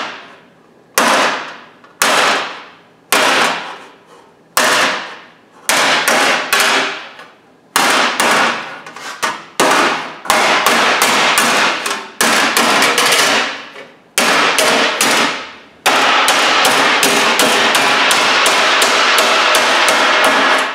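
A hammer pounding 18-gauge sheet steel freehand, forming a bend in a rust repair panel. The blows come in quick clusters with short pauses, each blow ringing briefly. For the last five seconds they run as a long unbroken stretch of rapid blows.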